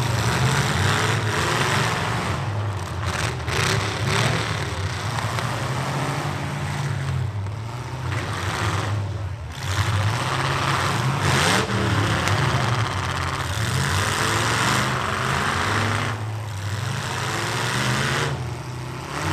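Demolition-derby truck engines running and revving hard, rising and falling, with a few sharp bangs of metal hitting metal.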